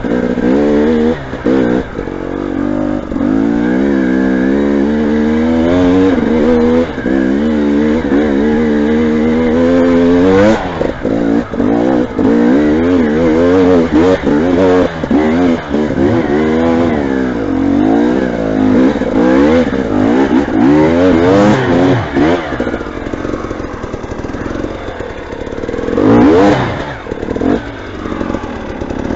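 Motorcycle engine revving up and down again and again under load, its pitch rising and falling about every second, with a louder surge near the end.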